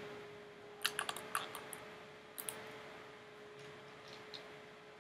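Clicks of a computer keyboard and mouse: a quick run of taps about a second in, two more about halfway, then a few faint ones, over a faint steady hum.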